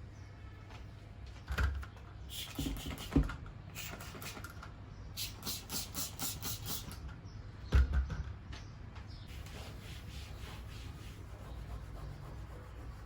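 Quiet household handling sounds over a low hum: two sharp knocks, one about a second and a half in and one near eight seconds, with short scraping and rustling between them and a run of quick, even strokes like scrubbing or wiping in the middle.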